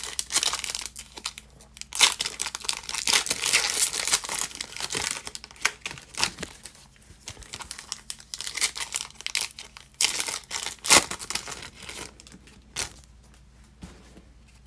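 Foil wrappers of basketball trading-card packs crinkling and tearing as they are pulled open, in a run of irregular crackles. The loudest crackle comes about eleven seconds in, and it is quieter over the last couple of seconds.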